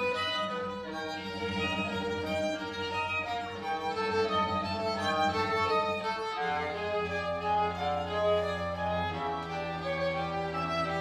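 String quartet (two violins, viola and cello) playing bowed, held low cello notes under busier upper string lines. The low note changes about six seconds in and again just after nine seconds.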